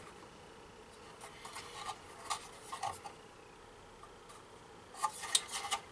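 A plastic scale-model tank hull being handled and turned over: light clicks and rubbing of plastic parts, with a quicker run of louder clicks near the end.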